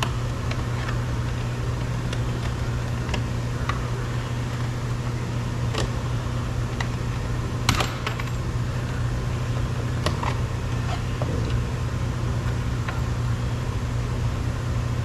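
Flathead screwdriver prying at a plastic window-switch panel in a car door trim, giving a few scattered sharp clicks and snaps, one louder about halfway through, over a steady low hum.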